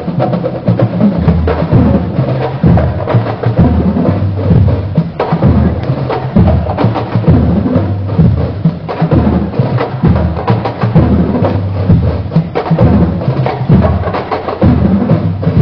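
Marching band percussion playing a steady rhythm: deep bass drum beats roughly once a second under dense, sharp clicking strokes like a wood block or drum rims.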